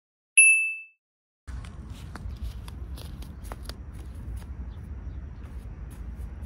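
A single bright ding that rings and dies away within about half a second, then a moment of silence. After that comes a low steady rumble with scattered small clicks and rustles.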